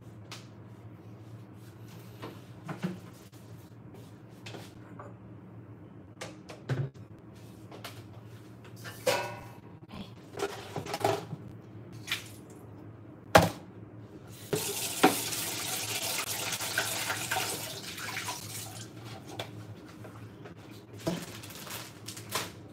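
Kitchen sink work: dishes and plastic containers clattering and knocking, with one sharp knock a little past halfway, then a tap running for about four seconds. A low steady hum sits underneath throughout.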